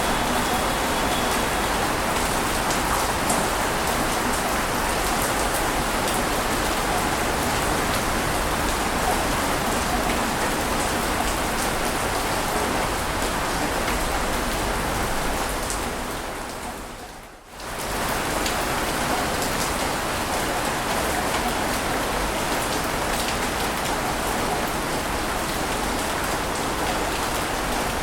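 Steady rushing water noise with a fine crackle, even in level with no rise and fall of individual waves. About seventeen seconds in, it fades down for a second or two and then comes straight back.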